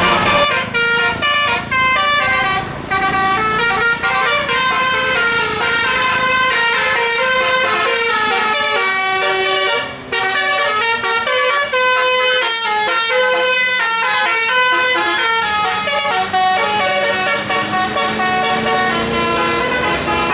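A bus's Basuri telolet musical horn playing a fast melody of short stepped notes, one after another, with a brief break about halfway through.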